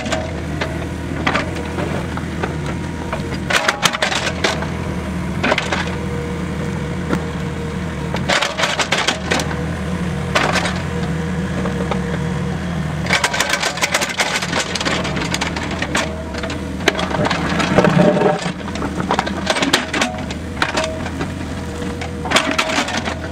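Mini excavator's diesel engine running steadily. Bursts of sharp clanks and knocks come every few seconds from the bucket and arm as it scrapes and piles manure and soil.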